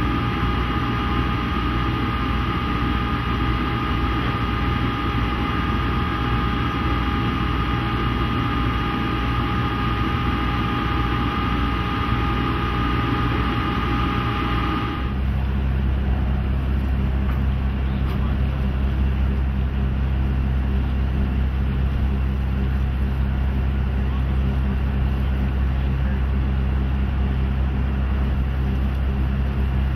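Heavy diesel engine running steadily, with a high whine over its rumble; about halfway it changes abruptly to a deeper, steady engine drone.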